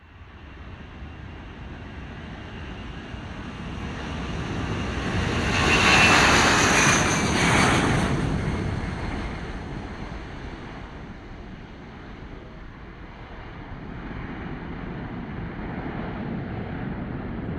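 The four Pratt & Whitney F117 turbofan engines of a C-17A Globemaster III running at takeoff power, growing louder as it rolls down the runway and lifts off. The sound is loudest six to eight seconds in as it passes, with a falling whine, then fades as it climbs away.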